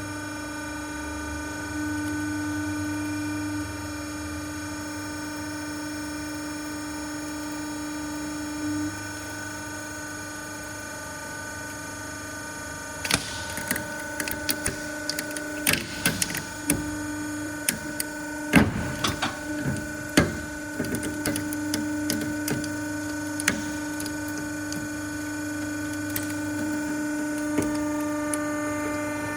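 Hydraulic press running with a steady motor-and-pump hum. From about halfway through, a run of sharp cracks, snaps and pops as the object under the ram breaks, loudest a little after the middle, then the steady hum alone again.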